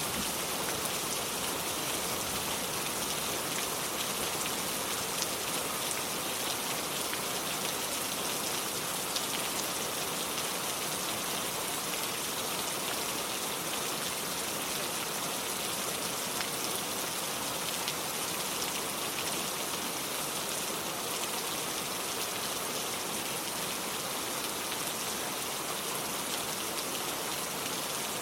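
Steady rain falling on hard surfaces, an even hiss dotted with fine drop ticks.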